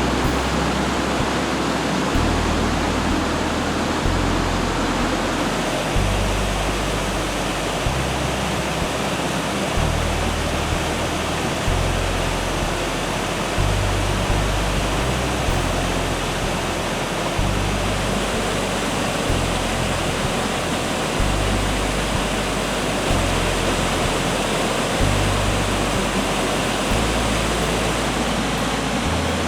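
Small waterfall rushing steadily, with background music over it: a deep bass line that steps to a new note about every two seconds.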